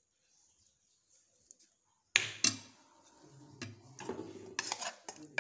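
Metal spoon scraping and clinking against a metal saucepan while scooping out thick onion sauce. Two sharp clinks about two seconds in, then scraping with more clinks near the end.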